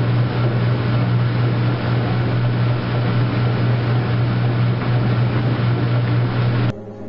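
Washing machine running with a steady, loud low hum under a rushing noise, which cuts off suddenly near the end.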